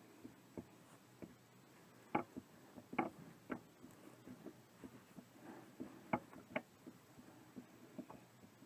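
Quiet handling sounds from hand-sewing a plush toy's seam: scattered light clicks and taps at an uneven pace, a few sharper ones about two, three and six seconds in.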